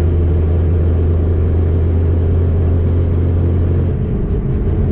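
In-cabin sound of a Ford Mustang Boss 302 driving, its Calimer Stage 3 MT82 six-speed manual transmission in the drivetrain: a steady low drone with road noise over it, easing slightly about four seconds in.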